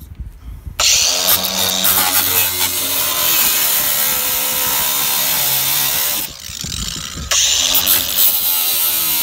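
Ryobi angle grinder cutting through a truck's sheet-metal hood, starting about a second in. The cut drops away for about a second a little after the middle, then bites in again.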